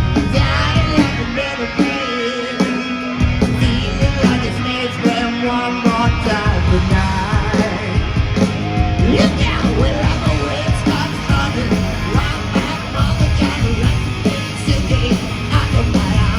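Live hard rock band playing loud, with drums, electric guitars and bass under a shouted lead vocal. The bass and drums drop out for a moment about three seconds in, then come back in.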